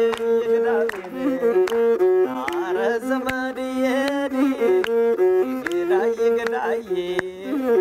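Music: a bowed string instrument plays a melody of held notes stepping up and down between the sung verses of a song.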